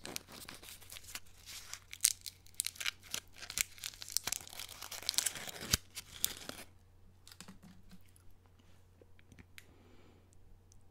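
Lollipop wrapper being torn open and crinkled close to the microphone: a dense run of crackles that stops about six and a half seconds in, followed by only faint handling ticks.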